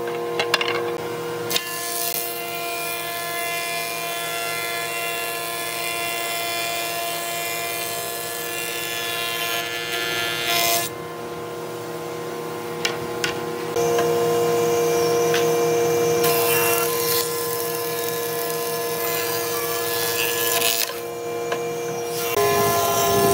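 Wood thickness planer running with a steady motor hum, its cutter head planing boards as they feed through with a dense rushing noise. A few sharp knocks of a board being handled come in the first two seconds.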